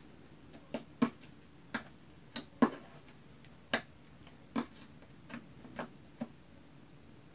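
Pink glue-and-detergent slime being squeezed out of a plastic bottle's nozzle, giving about ten irregular sharp pops and squelches as it comes out.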